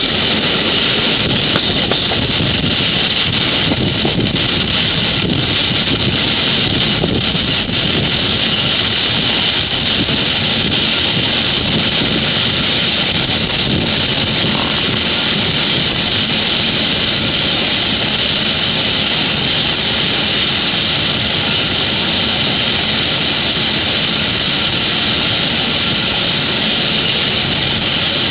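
Steady, even rushing noise of a vehicle in motion.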